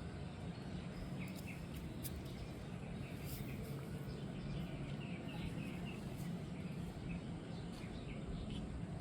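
Outdoor garden ambience: a steady low hum, with short high bird chirps scattered through it and a few faint clicks.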